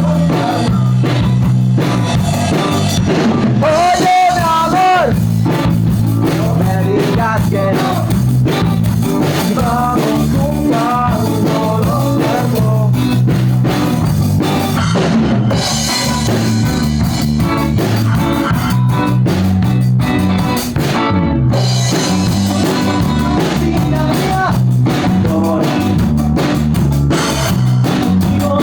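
Rock song playing: a drum kit and guitars under a singing voice, at a steady, full level.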